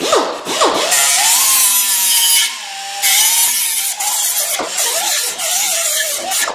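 Air-powered right-angle grinder with a small abrasive disc running against rusty steel, scouring the caliper mounting surfaces on a rear axle. Its whine wavers in pitch as it bears on the metal, eases briefly about two and a half seconds in, then picks up again and stops near the end.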